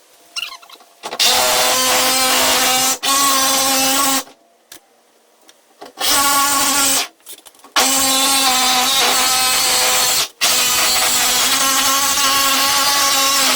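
Jigsaw cutting through the van's sheet-metal side panel, running at a steady pitch in four bursts of one to three seconds with short pauses between.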